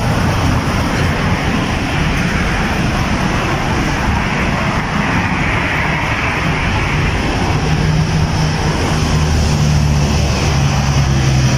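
Steady city street traffic, with cars and motorcycles passing on a busy avenue. A low engine hum from a nearby vehicle stands out from about eight seconds in.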